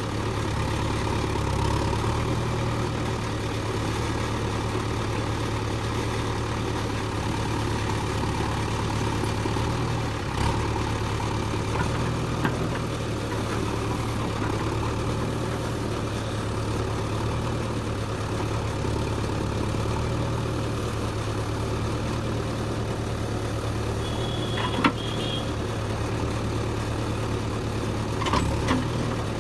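Diesel engine of heavy machinery, a backhoe loader or tractor, running steadily at a low even pitch, with a few short clanks, the sharpest near the end.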